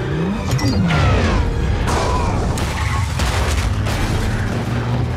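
Action-film sound mix: music under a car engine revving, then several heavy crashes and booms in the middle.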